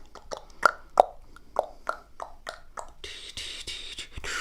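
Close-miked ASMR mouth sounds: a run of wet tongue clicks and lip pops, about two to three a second, each with a short hollow ring. About three seconds in they give way to a breathy, hissing mouth sound.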